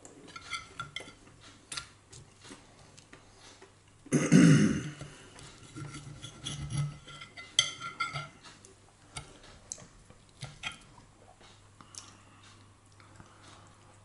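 Knife and fork clicking and scraping on a plate while eating, in scattered short clicks. About four seconds in there is one short, loud, throaty sound from the eater.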